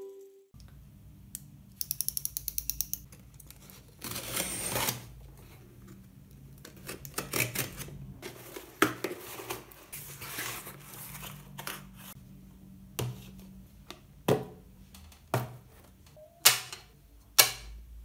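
Hands unpacking a cardboard shipping box: a quick run of clicks about two seconds in, then cardboard and packaging rustling and scraping. Near the end come several sharp knocks as the boxed items are set down on a wooden table.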